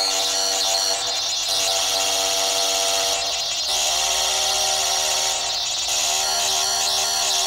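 Korg littleBits Synth Kit playing a steady electronic drone: held low-mid tones under a harsh, high buzzing layer. The buzz changes texture every couple of seconds as the synth's knobs are turned.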